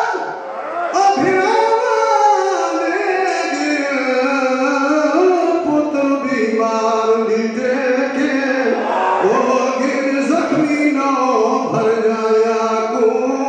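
A man's voice reciting majlis verse in a melodic chant, with long held notes that slide up and down in pitch and a brief breath about half a second in.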